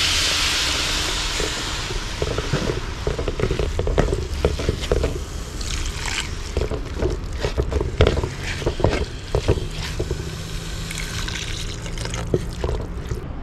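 Water poured in a thin stream from a steel vessel into a wide metal pot of fried onion and spice masala, splashing onto the mix. The rush is loudest in the first two seconds, then goes on as irregular splashing.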